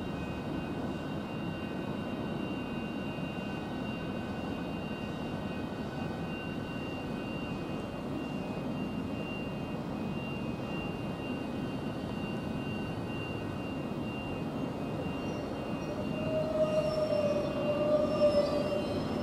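Southeastern Class 395 Javelin electric train creeping into the platform and drawing to a stand: a steady hum with a thin high whine from its equipment. A brief wavering tone rises over it near the end.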